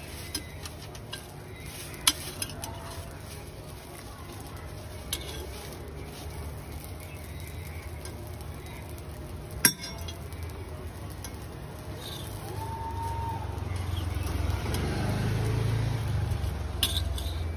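A metal spatula scraping and tapping on a hot iron dosa griddle as a crisp rava dosa is loosened and folded, with faint sizzling. A few sharp metal clinks stand out, the loudest about ten seconds in, over a low steady hum that grows louder near the end.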